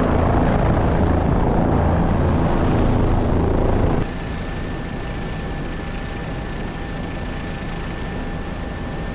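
Helicopter running in flight, dense low rotor and engine noise. About four seconds in the sound cuts abruptly to a quieter, steadier helicopter sound with a thin, steady high whine over it.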